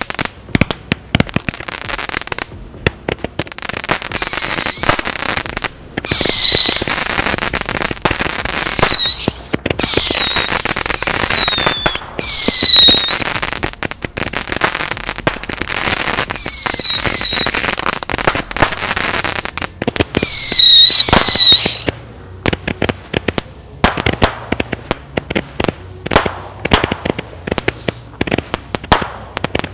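Corpse Cannon and Brain Buster barrage candles firing shot after shot: a run of sharp pops, with repeated whistles that fall in pitch through the middle and a stretch of quick crackling shots near the end.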